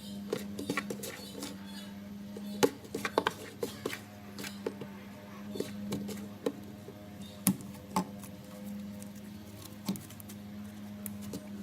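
Cloud slime being squeezed and stretched by hand: irregular sticky clicks and small pops, loudest about two and a half seconds in and again past seven seconds, over a steady low hum.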